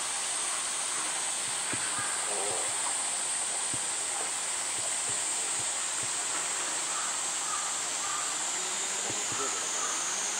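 A steady high-pitched chorus of cicadas, with faint murmuring voices beneath it.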